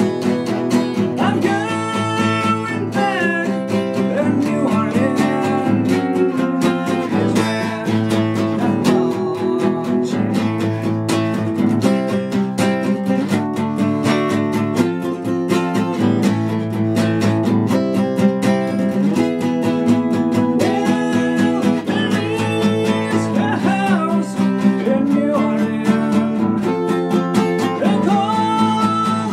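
Acoustic steel-string guitar played in a steady, even rhythm, chords ringing on one after another.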